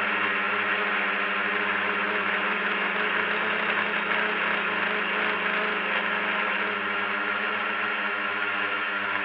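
Drone's electric motors and propellers whirring steadily in flight, picked up by the camera on board.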